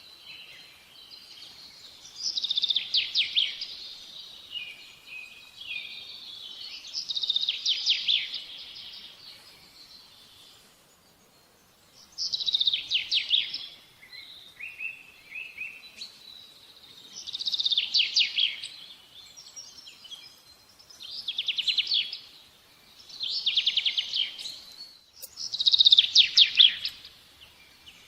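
A songbird singing short, fast trilled phrases, each about a second long, repeated every few seconds over faint background noise.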